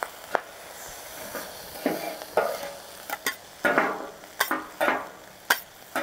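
Two wide metal spatulas scraping and clacking on a hot steel Feuerplatte griddle, tossing and mixing ground beef and vegetables in sauce over a steady sizzle. There are several separate scraping strokes, most of them from about two seconds in, each with a sharp click of metal on metal.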